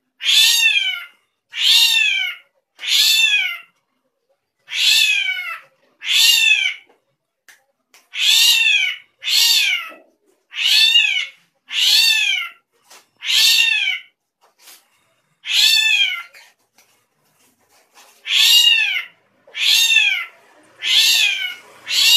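A srigunting krantil (drongo) giving a run of mewing, cat-like calls, about fifteen in all. Each call is under a second long, rises then falls in pitch, and comes roughly once a second with a few short pauses. This is the 'strange' cat-like voice the bird is kept for.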